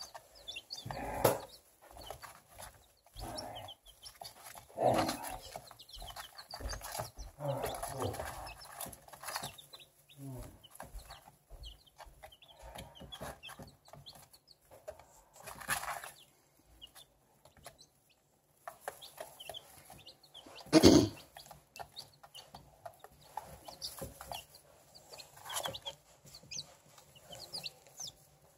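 Young chicks peeping softly and repeatedly while they peck cracked corn from a plastic dish, with light tapping of beaks on the dish. A few louder knocks stand out, the loudest about twenty seconds in.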